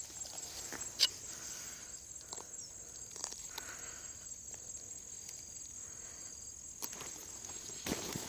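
Steady high-pitched insect drone, with a few light clicks and rustles of handling about a second in and near the end.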